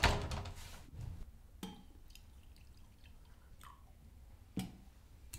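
Metal stovetop moka pot being handled: a sharp knock at the start, then scattered light clicks and taps of metal parts.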